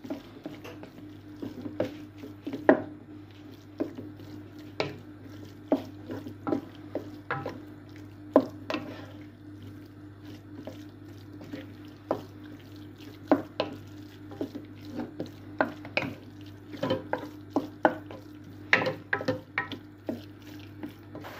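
A spatula stirring minced meat in a metal pot, with irregular knocks and scrapes against the pot and a steady low hum underneath. The meat is browning in oil and is stirred until its colour changes.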